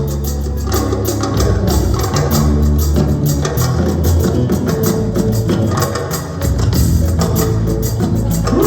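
Live band playing an instrumental mbalax passage, with bass, guitar and drums keeping a steady beat and no singing.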